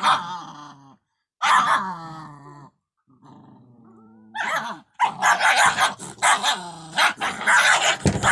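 Puppies growling, yipping and barking: a few short yelps that fall in pitch in the first half, then a dense run of rough growls and barks from about five seconds in.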